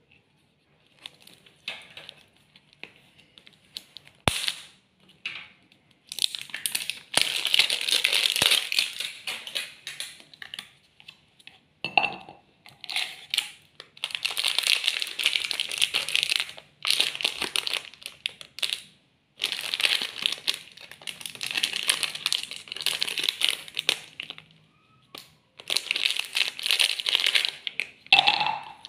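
Clear plastic snack wrapper crinkling as hands handle it and pull it open around a bundle of biscuit sticks, in several long stretches of rustling broken by short pauses and a few sharp clicks.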